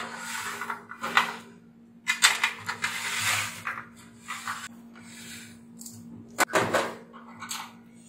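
Irregular clattering and knocking from the sheet-metal casing of an Aladdin AKF-P328N oil-fan heater as it is handled and turned on a workbench, with a few sharper metallic clanks about a second in, around two seconds in and past the six-second mark. A steady low hum runs underneath.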